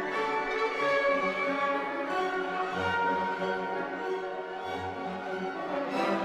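Background music: bowed strings, violin and cello, playing sustained notes.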